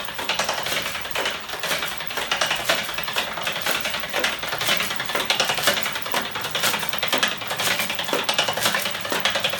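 Homemade magnet-driven flapping-wing engine running, its swinging arms and crank linkage making a fast, uneven clatter of clicks and taps.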